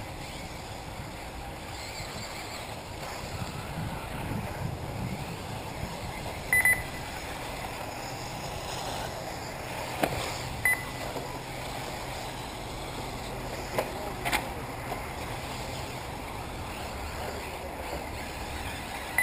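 Steady outdoor background at an RC racetrack, with the faint whir of electric RC buggies, broken twice by a loud, short, high electronic beep and by a few sharp clicks.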